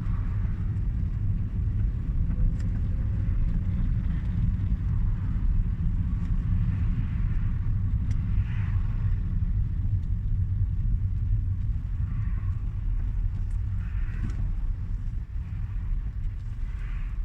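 Hyundai Accent being driven, with a steady low road and engine rumble. Short squeaks come every few seconds from around the steering rack; the owner says this squeak turns up over gentle bumps in the road.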